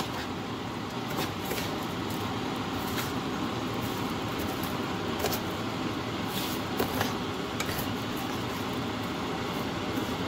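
A spatula stirring raw rice, vegetables and tomato soup in an unheated nonstick pan: scattered light scrapes and taps over a steady background hum.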